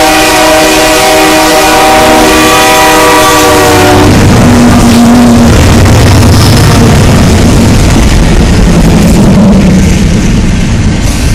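A BNSF freight locomotive's multi-tone air horn sounds a steady chord for the grade crossing, cutting off about four seconds in. The loud, low rumble of the train passing close by follows.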